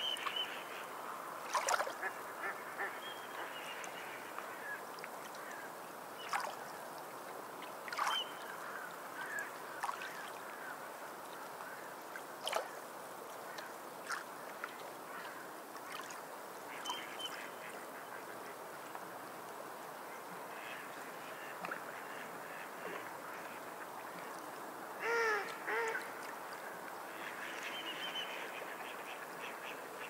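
Small waves washing and splashing against shore rocks: a steady wash broken by a splash every few seconds. A bird calls twice in quick succession near the end, with a few faint short chirps at other moments.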